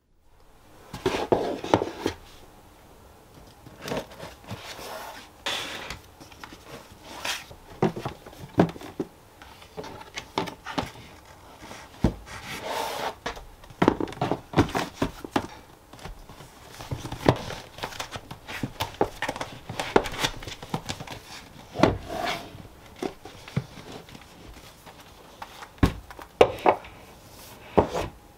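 Household items being handled and put away: a stiff folder or board slid into a storage box and a spiral notebook set on a shelf. Scattered knocks and taps with rustling of paper and card.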